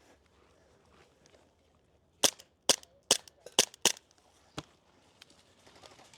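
Airsoft rifle firing single shots: five sharp cracks in quick succession a little past two seconds in, then a fainter one about a second later.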